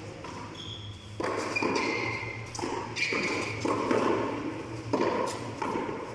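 A soft tennis ball being hit by hand in a bola-blanda frontón rally: several dull thumps as it strikes the wall and the concrete floor, each with a short echo.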